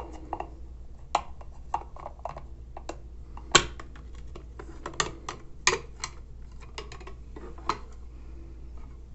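Small plastic mouthguard case handled at a porcelain sink: a run of irregular sharp clicks and taps as its snap lid is worked open and the case and guard knock about. The loudest clicks come about three and a half and five and a half seconds in, over a faint low hum.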